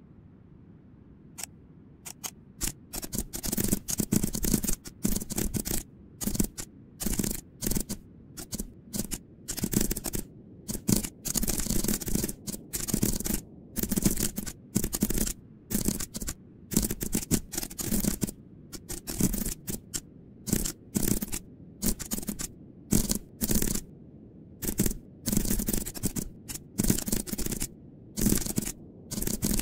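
Typing on a computer keyboard: rapid keystroke clicks in quick bursts with short pauses between them, starting about a second and a half in.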